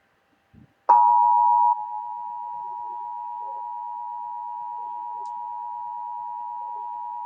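Emergency Alert System two-tone attention signal: a steady two-pitch alert tone that starts about a second in, loud at first, then settles and holds level.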